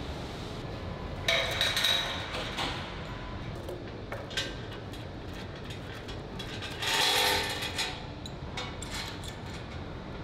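Steel lifting chain from an overhead crane hook clinking and clanking against a welded steel frame as it is hooked on, in loud bursts about a second in and again about seven seconds in, with lighter clicks between. A steady low drone runs underneath.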